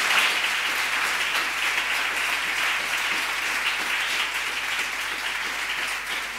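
An audience applauding, steady clapping that tapers off slightly toward the end.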